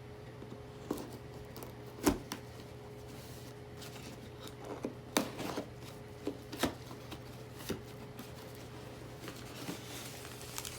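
A cardboard shipping box and its packing being opened by hand: scattered rustles, scrapes and sharp clicks, the loudest about two seconds in and several more close together a few seconds later, over a faint steady hum.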